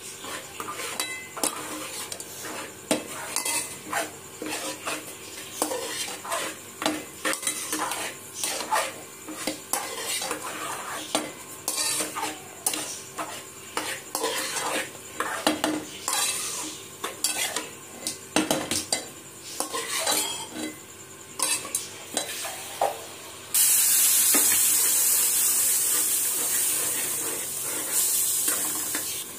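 A spoon scraping and clinking against a metal pan in quick irregular strokes as okra, yogurt and spices are stirred together. About 23 seconds in, a loud steady sizzling hiss starts suddenly and fades a little near the end.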